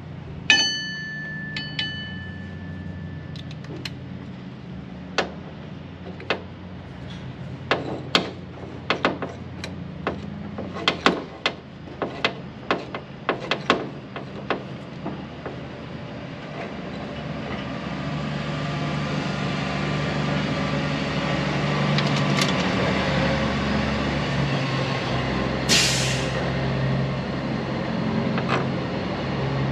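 Hand tools on the steel bearing housing of a combine's grain tank auger: a ringing metal clink about half a second in, then a run of sharp, irregular metal taps and clicks as the bearing's locking collar is worked tight. From about halfway a steady machine hum builds up, with a short hiss near the end.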